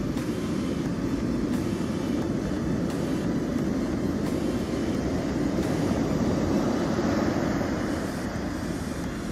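Ocean surf breaking on the beach: a steady rush of noise that swells slightly about six to seven seconds in.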